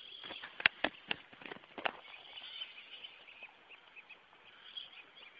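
Small birds chirping in the background, with about four sharp clicks in the first two seconds.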